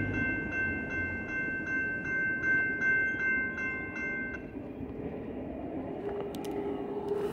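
Railroad crossing bell ringing at about three strokes a second while the gate arms rise. It cuts off a little over four seconds in, once the gates are up and the signals shut off after the train has cleared. A low rumble from the departing train lies underneath.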